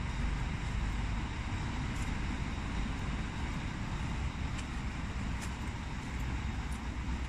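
Scania G440 truck's 13-litre six-cylinder diesel engine running steadily, a low even rumble.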